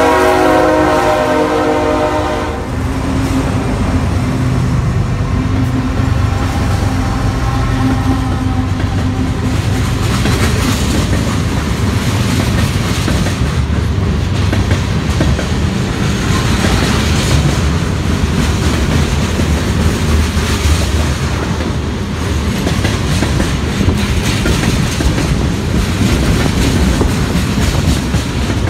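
BNSF diesel freight train passing: the locomotives' air horn sounds a chord that cuts off about two and a half seconds in, their engines run by, then boxcars and tank cars roll past with a steady clickety-clack of wheels on the rails.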